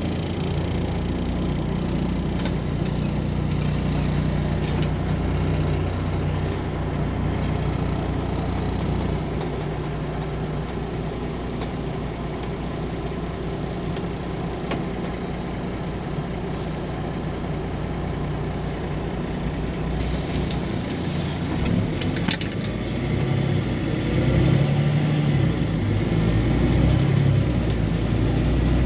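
Inside a LiAZ 5292.22 city bus: the diesel engine runs steadily as the bus draws into and stands at a stop, with short hisses of compressed air about two-thirds of the way through. Near the end the engine pulls harder and louder as the bus moves off.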